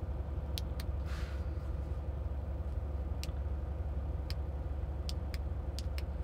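A steady low hum with a faint steady tone in it, and about eight or nine light clicks scattered unevenly through it.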